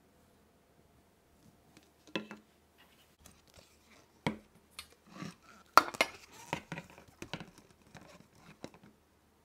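Kitchen containers and utensils being handled: a string of light knocks, clinks and clatters with short rustling scrapes, starting about two seconds in and loudest about six seconds in.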